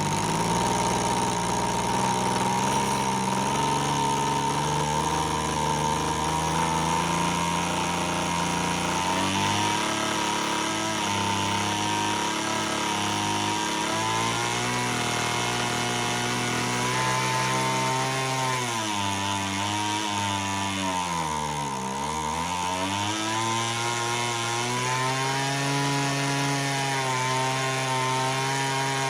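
Homelite HT17 hedge trimmer's two-stroke engine running on a freshly reset carburettor, its mixture screws set three turns out. Its speed shifts several times, and about three-quarters of the way through it sags sharply, then picks back up.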